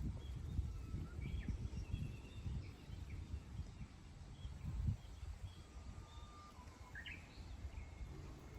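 Wild birds calling faintly with short whistled notes and a quick rising chirp about seven seconds in, over a louder, uneven low rumble of outdoor noise.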